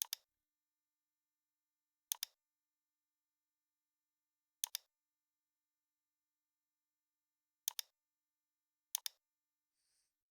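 Computer mouse clicking: five quick double clicks a couple of seconds apart, with silence between them.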